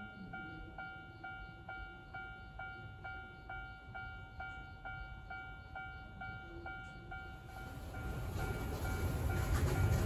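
Level-crossing warning bell ringing steadily, a little over two strikes a second. About three-quarters of the way through, the rumble of the approaching funicular cable car grows steadily louder as it reaches the crossing.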